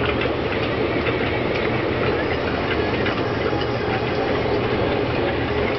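Aquarium air pump and filter running: a steady low hum under a constant rush of moving water, with faint scattered ticks.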